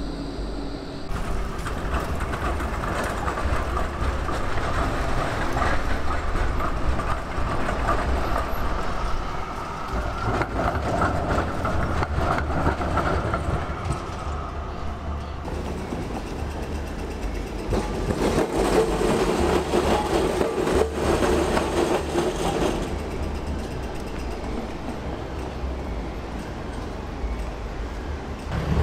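Melbourne electric trams running past on street tracks, with the steady noise of wheels on rail and motors. The sound changes abruptly a few times.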